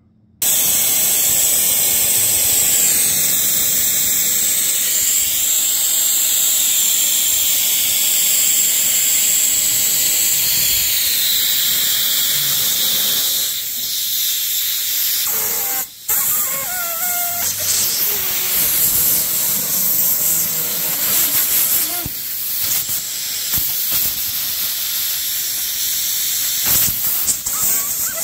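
Compressed air hissing loudly as it is blown in under a bicycle handlebar grip to free it. The hiss drops out for an instant about halfway through.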